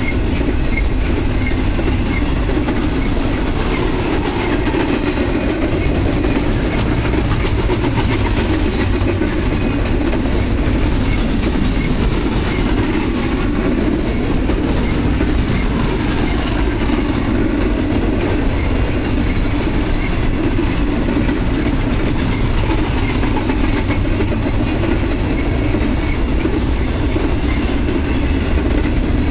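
Double-stack intermodal container train's well cars rolling past close by: steel wheels running on the rails with a steady, unbroken noise.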